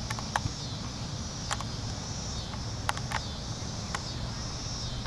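Open-air ambience at a grass soccer field picked up by a handheld camera: a steady low rumble, a steady high-pitched buzz and a few sharp clicks scattered through.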